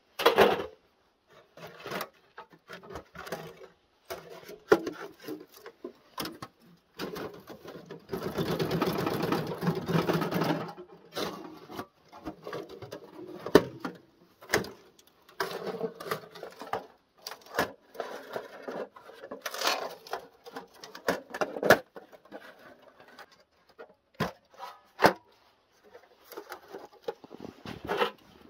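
Thin sheet-metal panels of a Winnerwell ultralight folding wood stove clinking, knocking and scraping against each other as the stove is taken apart and its plates stacked flat. About eight seconds in there is a longer continuous scrape lasting about three seconds.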